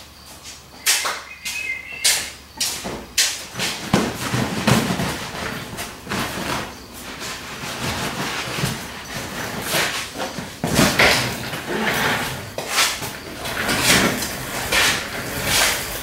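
Irregular knocks, scrapes and cloth rustling from a person moving about and settling onto a reclining office chair, with the chair shifting and creaking under him.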